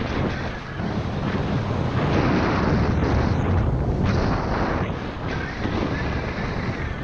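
Wind buffeting a GoPro's microphone at about 20 mph, with the hiss and scrape of skis sliding and carving over tracked snow, swelling and easing with each turn.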